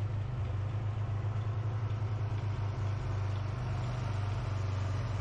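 Tractor engine running steadily at a constant speed, with a low, even hum.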